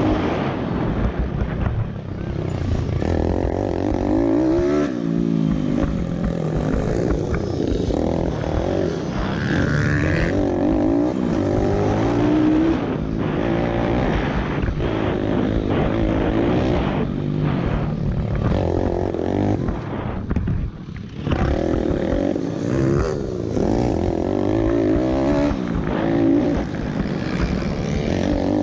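Pit bike engine revving hard and falling back again and again as the rider accelerates, shifts and brakes around a dirt track, heard from a helmet-mounted camera with wind noise. The engine briefly drops away about two-thirds of the way in, then picks up again.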